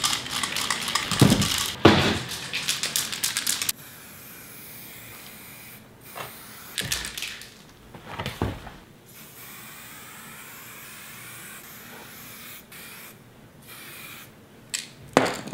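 Aerosol spray paint can hissing in a run of bursts for the first few seconds, then cutting off suddenly; after that it is quieter, with a few brief knocks.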